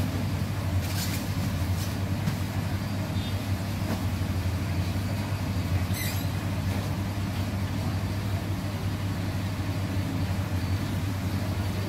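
Steady low machine hum under a constant noisy background, with one faint click about halfway through.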